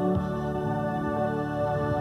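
Live band music: an electronic keyboard with an organ-like sound holds a sustained chord over the band, and the steady drum beat stops just after the start.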